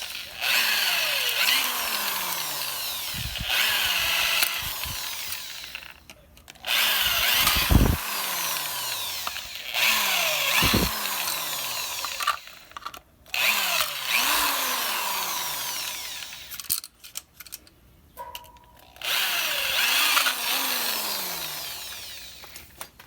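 Electric drill boring rivet holes through a Model T's steel transmission band and its wooden liner. It runs in about half a dozen short bursts, each winding down with a falling whine as the trigger is let go.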